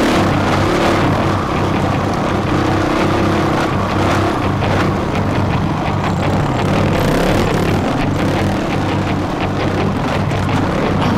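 Dirt bike engine running under load on a rough trail, its pitch rising and falling with the throttle, with frequent short knocks.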